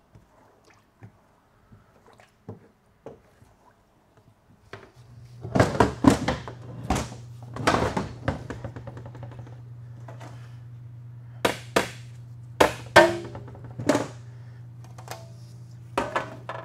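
Metal clunks and knocks as the oil pan is worked off a TH350 automatic transmission on a steel bench: light ticks at first, then a dozen or so sharp hits from about five seconds in, some with a brief metallic ring. A steady low hum starts about five seconds in.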